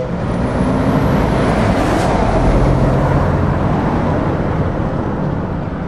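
Scania tipper truck driving past close by, its diesel engine and tyres swelling to their loudest about two to three seconds in, then fading as it pulls away.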